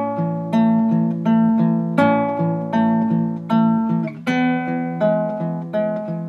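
Acoustic guitar fingerpicked in a steady pattern of single plucked notes over an A chord, changing to another chord about four seconds in.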